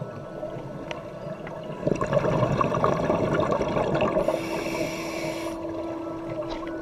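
Scuba breathing underwater: exhaled bubbles gurgling, swelling about two seconds in, then a brief hiss from the regulator.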